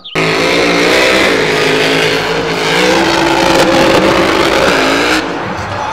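Monster truck engine revving hard, its pitch rising and falling, over a loud rushing noise. It cuts in abruptly at the start and drops off about five seconds in.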